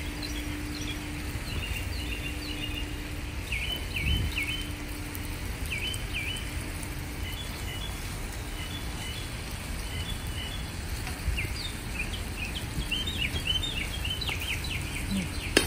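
Small birds chirping over and over, short quick calls that come in clusters, with a steady low rumble of wind on the microphone underneath.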